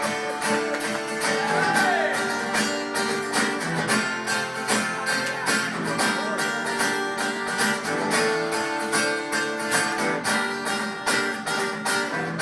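A live acoustic band playing a song's instrumental intro: strummed acoustic guitars in a steady, even rhythm.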